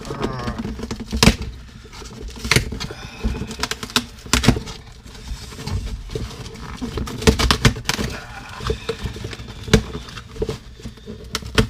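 Packing tape being scratched at and ripped off a cardboard shipping box, then the box's cardboard torn open: irregular scratching and crinkling broken by sharp rips every second or two.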